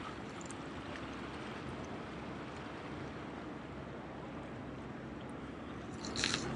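Steady wash of sea water against jetty rocks, with wind noise and a faint low hum. Near the end comes a brief rattling scrape.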